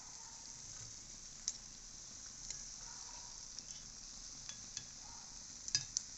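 Coconut oil sizzling steadily in an unniyappam pan as the fritters fry, with a few light metal clicks of a steel spoon and skewer against the pan, the loudest cluster near the end.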